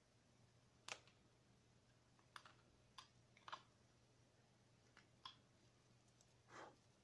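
Carving knife cutting small chips from a hand-held wooden figure being whittled: faint, sharp clicks, about seven spread over several seconds, the last one slightly longer.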